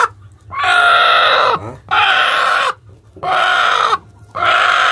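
Broody game hen sitting on eggs, giving four drawn-out protest calls about a second apart as a hand reaches under her: the angry call of a sitting hen disturbed on her nest.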